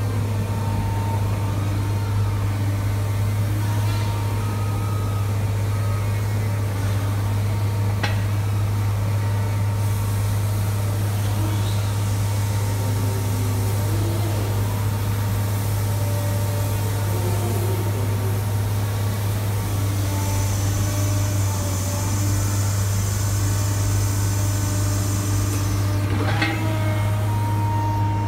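Caterpillar M322D MH wheeled material handler's diesel engine running steadily with a low hum while its hydraulics raise the cab and move the boom. There is a sharp knock about eight seconds in and another near the end.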